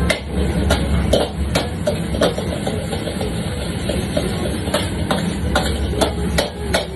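Metal ladles and spatulas clanking and scraping against steel woks as rice is stir-fried, in irregular sharp strikes, over a steady low roar from the wok station.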